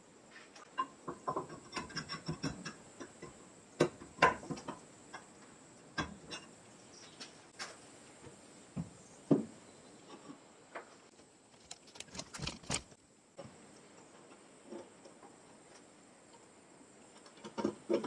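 Cast-iron parts and coil spring of a Handy Junior button press being handled and fitted together on a wooden workbench: scattered clicks, light knocks and metal clinks, with a quick run of clicks about twelve seconds in.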